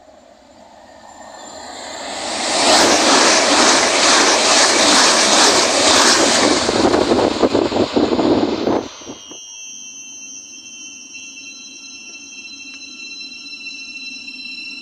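An electric train passes through at speed: a rushing noise builds over about two seconds into loud wheel and air noise that cuts off abruptly about nine seconds in. After that comes a steady, high electric whine in several tones from a Great Northern Class 717 electric multiple unit beside the platform.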